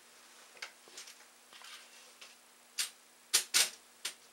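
Fly-tying tools and materials handled at the vise: a series of sharp clicks and taps, the loudest two close together about three and a half seconds in, with light rustling between.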